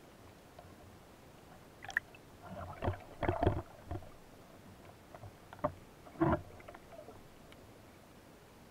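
Underwater sound heard through an action camera's waterproof housing: a few short, muffled knocks and bubbly water swishes, loudest about three seconds in and again just past six seconds, over a faint steady hiss.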